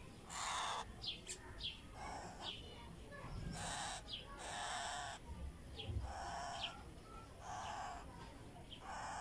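Parrot chick giving repeated harsh begging calls, about one a second, with short high chirps between them: the hunger cry of a hand-reared chick while it is fed from a syringe.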